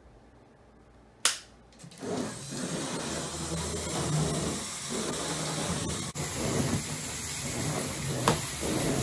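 LEGO battlebots' small electric motors whirring, with a steady hum from a spinning disc weapon as the robots drive across a plywood arena floor. One sharp crack about a second in, before the motors start, and a few light clicks later.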